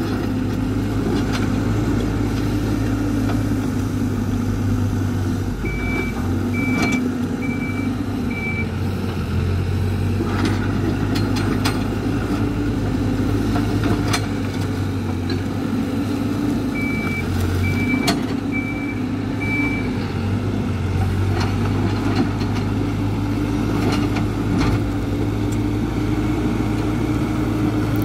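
Hidromek 102B backhoe loader's diesel engine running steadily under working load, its pitch shifting as it moves. Twice, about one beep a second, its reversing alarm sounds four times as it backs up, with occasional short clanks.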